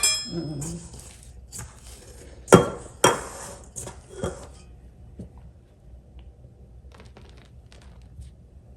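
Kitchenware clinking and knocking: a ringing clink at the start, then two sharp knocks about two and a half and three seconds in and a few lighter ones, as utensils and a bowl are handled while flour is added to the dough.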